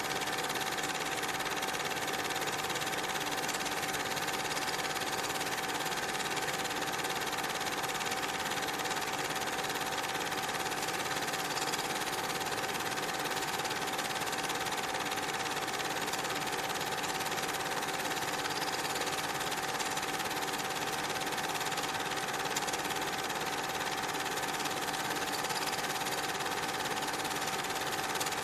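Steady mechanical whirring with a constant high tone, running on unchanged through the cuts between shots rather than following the trains in the picture.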